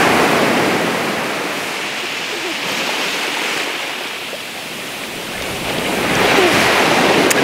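Ocean surf breaking and washing up the sand: a steady rushing hiss that eases off in the middle and swells again near the end.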